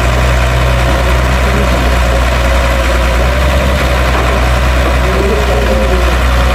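Caterpillar excavator's diesel engine running at a steady speed while the machine works its arm and bucket in loose soil.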